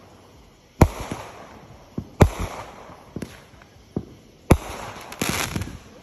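Consumer aerial fireworks bursting overhead: several sharp booms at uneven intervals, with a hissing stretch near the end.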